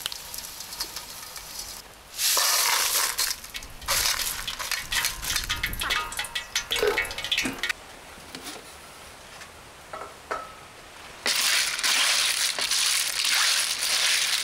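Scorpions being stirred in fizzing cola in an aluminium basin: stretches of fizzing, sloshing and rustling, with metal tongs clinking against the bowl. A loud stretch comes about two seconds in and another near the end, with a run of clicks and quieter rustling between.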